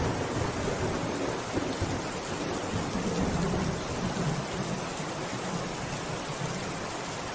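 Steady rain falling, with a low rumble of thunder that swells about halfway through.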